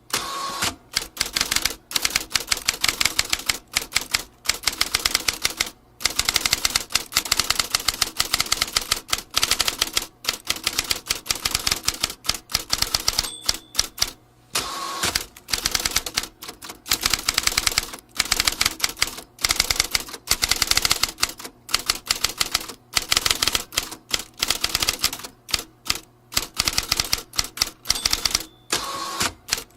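Vintage typewriter being typed on steadily, with rapid key strikes and short pauses. A brief ring sounds near the start, about halfway and near the end.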